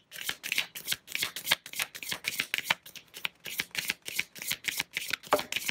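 A deck of tarot cards being shuffled by hand: a steady, rapid run of short card slaps and riffles, about five a second.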